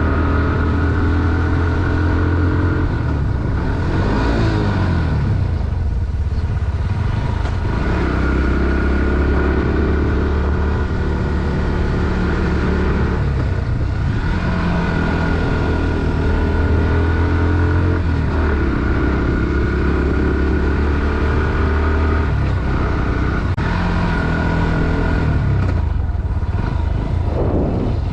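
Bajaj Pulsar NS160's single-cylinder four-stroke engine pulling hard while riding uphill. The revs climb and then drop back several times.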